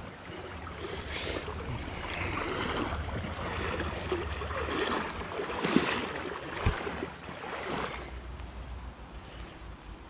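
Creek water sloshing and splashing, with wind rumbling on the microphone. It is loudest through the middle, with a few sharper splashes, and fades near the end.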